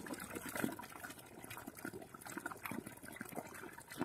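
Faint water trickling and splashing, with small irregular drips and splashes.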